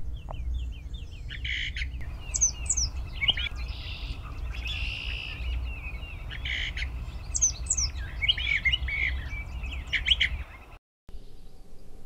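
Brown thrasher singing: a long string of varied, quick phrases, several given twice in a row, over a steady low rumble.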